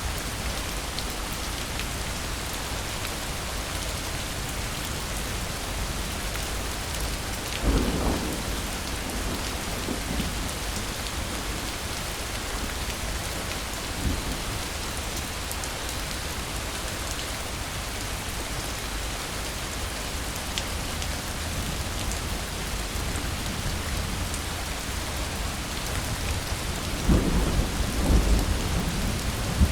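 Steady heavy rain with thunder: a sharp thunderclap about eight seconds in that rumbles away over a few seconds, a smaller crack a few seconds later, and a longer, louder rumble of thunder near the end.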